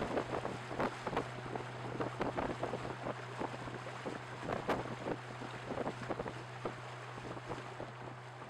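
Small motorboat under way on choppy sea: a steady engine hum under irregular slaps and splashes of water against the hull, with wind buffeting the microphone.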